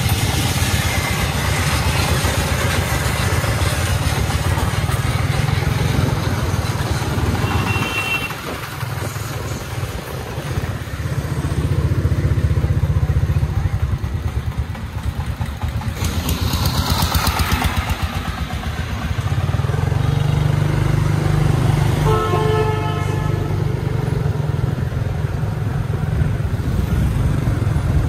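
A vehicle engine runs steadily close by, a low continuous throb with road noise. About two-thirds of the way through, a vehicle horn sounds for about a second.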